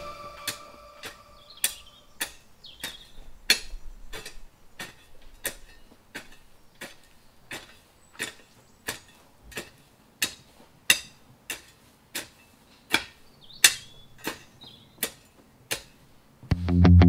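Steel spade chopping into turf and soil in quick short strokes, a sharp chunk about twice a second. Faint bird chirps sound here and there, and loud background music comes in near the end.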